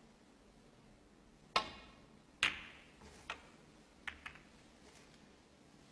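Snooker shot: the cue tip strikes the cue ball with a sharp click about one and a half seconds in, and a second sharp click of ball on ball follows about a second later. Several fainter clicks of the balls running on come over the next two seconds.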